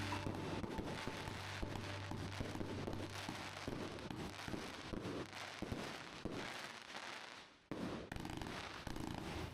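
Dense, rapid crackling and popping, many small cracks close together, with a brief drop-out about three-quarters of the way through.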